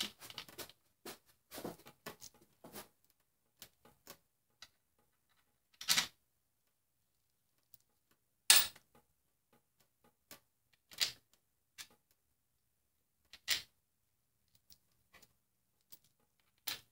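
Socket wrench with an extension turning steel case bolts into the aluminium case of a VW 09G automatic transmission: scattered metal clicks and short ratcheting rattles with quiet gaps between, the loudest about eight and a half seconds in.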